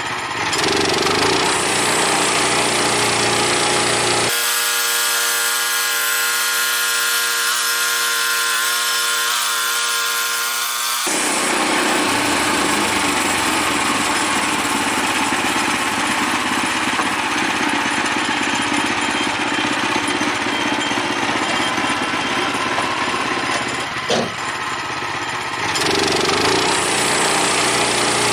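Woodland Mills portable bandsaw mill running steadily, its blade cutting through an old timber. For a few seconds near the start the deep part of the sound drops away, leaving a steady multi-toned hum, before the full sawing noise returns.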